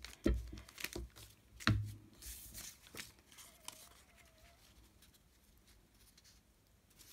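Book-page paper being handled on a craft table: several light taps in the first two seconds, then a short burst of paper rustling about two seconds in.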